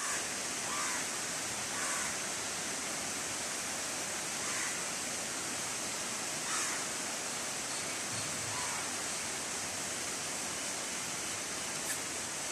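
Heavy rain falling steadily on trees and foliage: an even, unbroken hiss.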